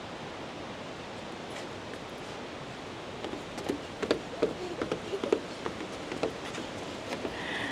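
Steady rushing background noise, with a run of footsteps on a trail, short uneven crunches and knocks, starting about three seconds in.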